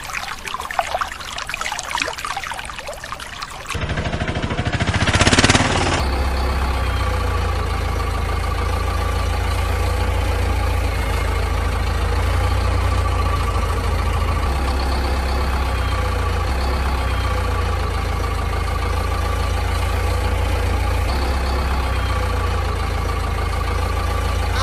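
Water splashing in a plastic tub for the first few seconds, then a brief loud rush and, from about six seconds in, a vehicle engine idling steadily with a low rumble. The engine is a sound effect, since the toys on screen have no motors.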